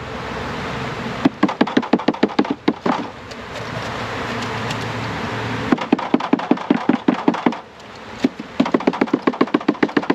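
A package of honeybees being shaken and rapped in three bursts of quick knocking, several knocks a second, to dump the bees into the hive. Bees hum between the bursts.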